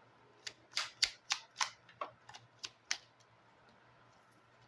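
Oracle cards being handled and laid out: a quick run of about nine sharp card snaps and taps over two and a half seconds.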